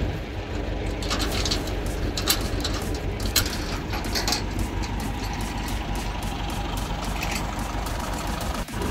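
Massey Ferguson tractor engine idling steadily, with a scatter of short metallic clinks and knocks over it during the first half.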